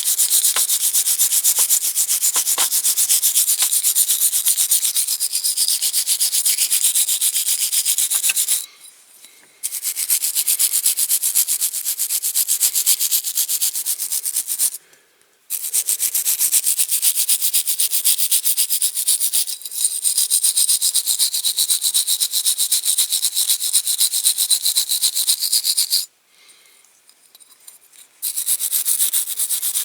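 Hand wire brush scrubbed rapidly back and forth over a die-cast metal toy car body, scraping off old paint that caustic soda stripping left behind. The scratchy brushing stops briefly three times.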